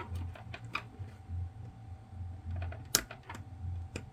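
Small irregular clicks and ticks from picking and peeling rubbery adhesive off a small SD card reader, with one sharper click about three seconds in, over a faint low hum.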